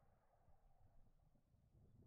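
Near silence: faint low background rumble and hiss.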